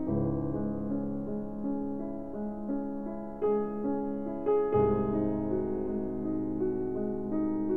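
Background music: piano-like keyboard notes over a held low bass, which moves to a new low chord about five seconds in.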